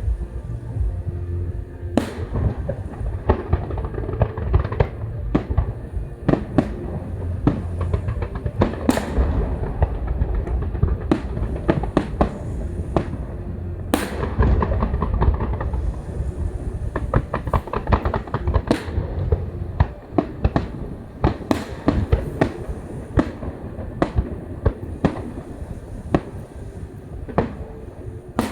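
Fireworks display going off in a rapid barrage: many sharp bangs, several a second, over a continuous low rumble of shell bursts, with a spell of dense crackling about ten seconds in.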